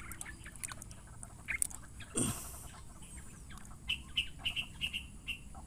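Wet moss being pushed and stirred by hand in a bucket of water, with small clicks and one louder squelch about two seconds in. In the second half a bird gives a quick run of short, high chirps.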